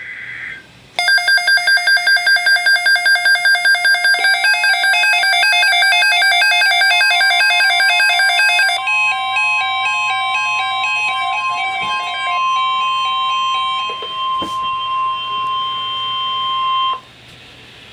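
Emergency Alert System tones: a rapid electronic beeping sequence, about four beeps a second, with a steady single alert tone joining partway through. Both cut off suddenly near the end.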